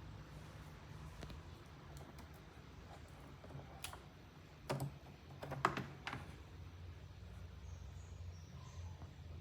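Low, steady hum of the 1997 National Windy Mate box fan running. A short run of sharp clicks comes in the middle, several close together.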